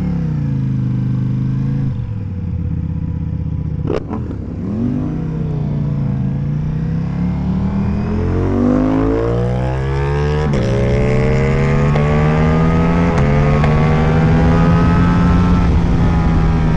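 2025 Ducati Diavel V4's 1,158 cc 90° V4 engine through an Akrapovič exhaust, under way. The engine note drops back about two seconds in, with a sharp click at about four seconds. It then pulls hard, its pitch climbing, with upshifts at about ten and thirteen seconds in.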